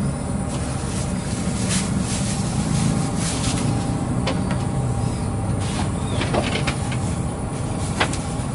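A motor running steadily with a low drone, with a few sharp clicks and taps in the second half.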